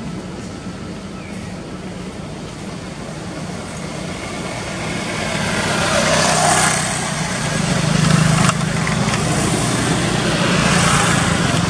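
Road traffic: a motor vehicle's engine hum and tyre hiss grow louder about halfway through as it drives past.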